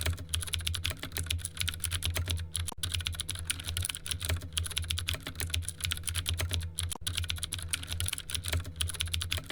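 Rapid, continuous typing on a computer keyboard, many keystrokes a second, over a steady low hum.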